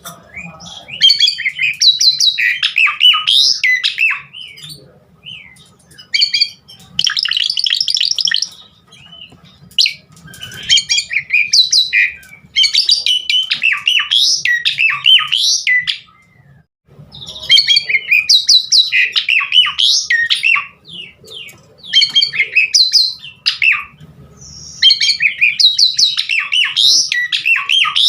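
Asian pied starling (jalak suren) singing a long, varied song of rapid chattering, squawking and whistled phrases filled with mimicked calls. It comes in bouts of several seconds broken by short pauses.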